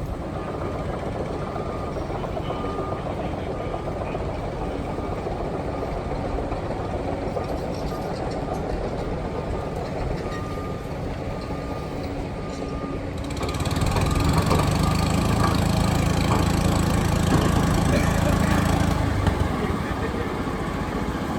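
Heavy engine running steadily, with a faint repeating beep in the first half. A louder, deeper engine drone comes in about 13 seconds in and drops away about six seconds later.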